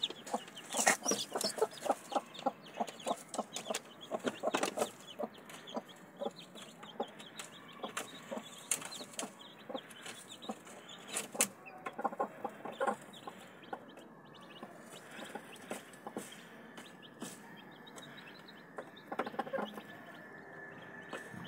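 Mother hen clucking over and over to the chicks she is brooding, most busily in the first five seconds and again near the end, with the chicks' faint high peeping above it.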